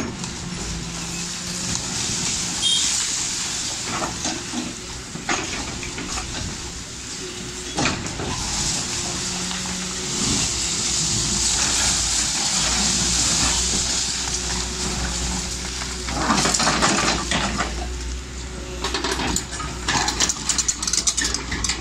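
Tracked excavator's diesel engine running steadily while brick and concrete rubble crashes and clatters down as a building is demolished. There are heavy crashes about four, five and eight seconds in, and a longer run of crashing and clattering from about sixteen seconds.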